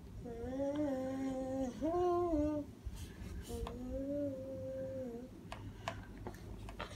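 A voice humming three long, held notes, the second a little higher than the first. In the last second or two, a few sharp clicks and taps as plastic Play-Doh toys are handled.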